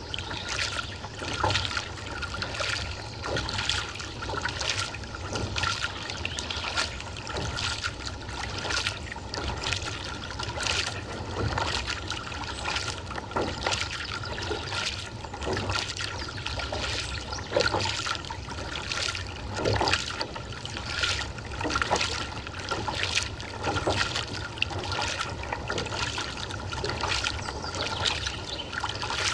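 Kayak paddle strokes: the blades splash in and out of the water about once a second, alternating sides, with water trickling and dripping off them, over a steady low rumble.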